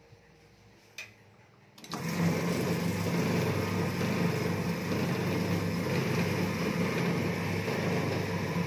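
Automatic ceiling-fan coil winding machine starting about two seconds in, then running at a smooth, steady speed as it winds 36-gauge copper wire onto a fan stator. A faint click about a second in.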